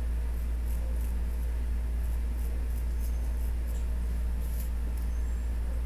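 A steady low hum throughout, with faint soft rustles and ticks of tissue paper being tucked around a customer's neck and collar.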